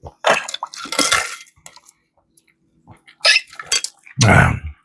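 Close-miked wet mouth sounds of a person eating and drinking: bursts of slurping and smacking, with a short voiced sound near the end.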